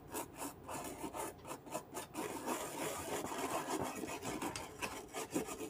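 A brush wet with thinner scrubbing the solder side of a car stereo's circuit board, the bristles rasping back and forth. The strokes come quickly and evenly, about three a second, for the first two seconds, then run together into a steady scrub.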